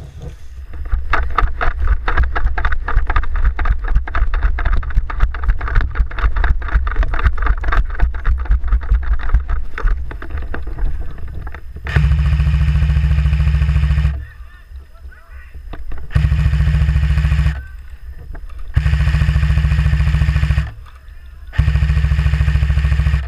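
Airsoft electric rifle firing four long full-auto bursts in the second half, each a steady buzzing rattle that starts and stops abruptly. These follow about ten seconds of fast, continuous clattering with heavy rumble.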